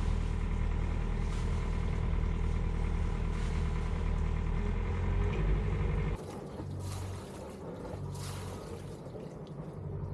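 Sailboat's engine running steadily close by as the boat is motored off the dock. About six seconds in, the sound cuts to a quieter engine hum with water rushing along the hull.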